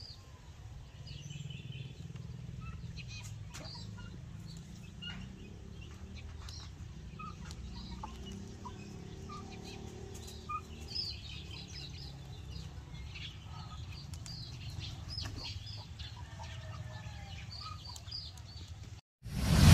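Backyard chickens clucking, with many short scattered chirps and calls over a steady low rumble. Near the end the sound cuts out for a moment, then a loud burst of noise begins.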